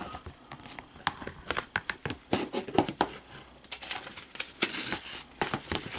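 Handling of a plastic Blu-ray case: irregular clicks and scratchy paper rustling as the printed insert is pulled out of the case.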